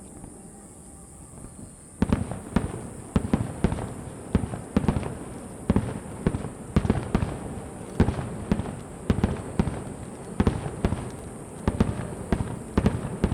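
Aerial fireworks shells bursting in a rapid barrage, beginning about two seconds in: a quick, uneven run of sharp bangs, two or three a second, each trailed by a rumbling echo.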